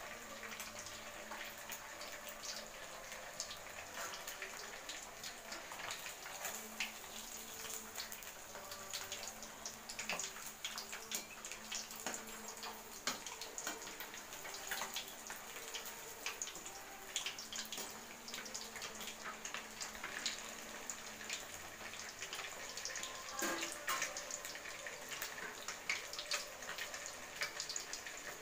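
Masala-coated fish pieces deep-frying in hot oil in an aluminium kadai: a steady sizzle dotted with many small crackling pops.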